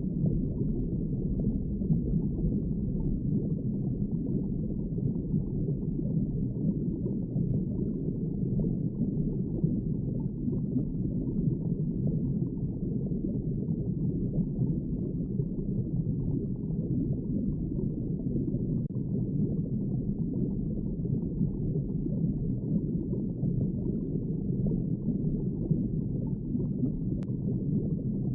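Underwater ambience: a steady, low wash of water noise with no distinct events.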